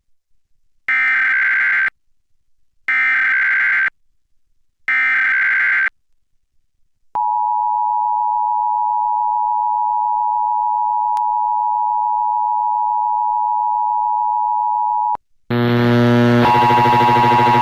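Emergency Alert System tones: three one-second bursts of screechy digital SAME header data, a second apart, then the EAS attention signal, two steady tones sounding together, held for about eight seconds and cutting off suddenly. Near the end a loud buzzy electronic sound with many tones starts.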